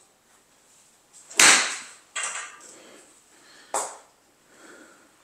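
A lob wedge strikes a golf ball off a hitting mat with one sharp crack about one and a half seconds in, then two lighter knocks follow, about one and two seconds later.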